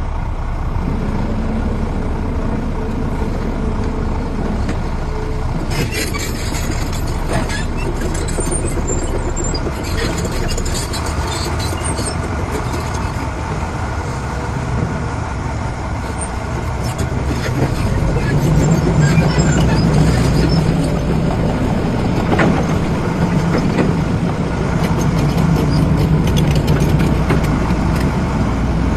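Diesel engines of heavy construction machinery running, with scattered clanks about a quarter of the way in; the engine note deepens and grows louder past the halfway mark, as if taking on load.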